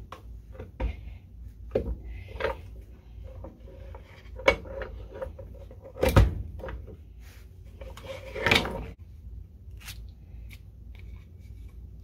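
Hand-lever arbor press worked by its long handle, driving a steel keychain die through leather: a series of clunks and knocks, the loudest about six seconds in, and a half-second rattle around eight and a half seconds as the die and plate are shifted.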